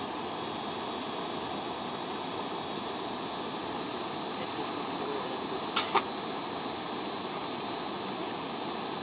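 Steady rush of a small waterfall cascading over rocks into a river pool, with two sharp clicks close together about six seconds in.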